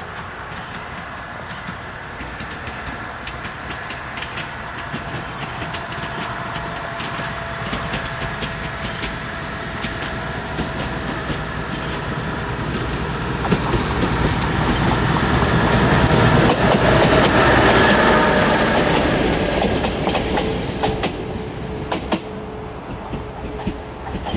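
A MÁV Mk48 diesel-hydraulic narrow-gauge locomotive hauling a single carriage approaches, passes close by and draws away, its engine running steadily. The sound swells to its loudest a little past the middle and then fades, with the wheels clicking over the rail joints.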